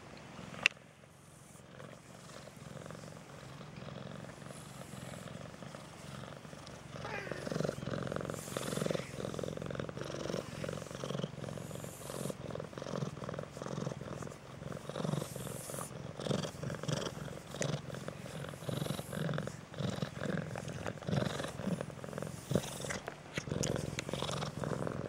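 Hairless cat purring steadily while being stroked, the purr coming in about seven seconds in. A single sharp click sounds just after the start.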